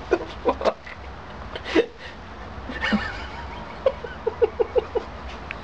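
A person laughing softly in short breathy chuckles, with a run of about five quick 'heh' pulses about four seconds in.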